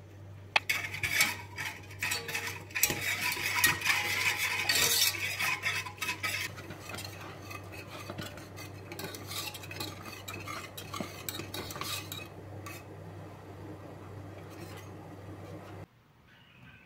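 Wire whisk beating a milk, starch and sugar cream mixture in a stainless steel pot: rapid clicking and scraping of the wires against the pot, most vigorous in the first few seconds and then steadier, over a low steady hum. Both stop suddenly near the end.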